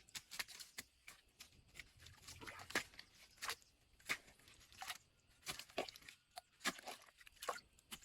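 Irregular crisp snaps and crunches, about one or two a second, like something moving through or breaking dry material.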